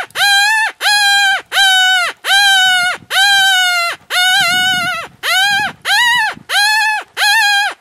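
A predator call playing a prey-distress sound to lure coyotes: a string of loud, wailing cries, about one and a half a second, each bending up at the start and dropping away at the end.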